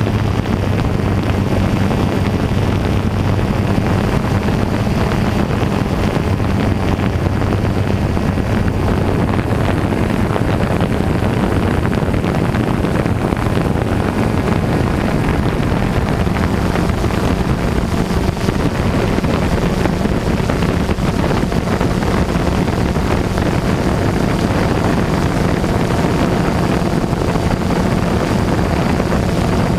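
A motor running steadily with a low, even hum, under a loud, even rushing noise.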